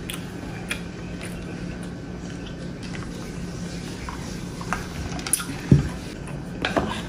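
Close-miked chewing and wet mouth sounds of someone eating squid, with small clicks over a steady low hum, then a sip of water. A short low thump comes a little before the end.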